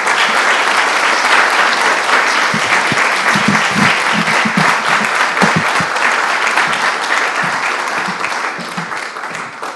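Audience applauding in a room, steady clapping that dies away near the end.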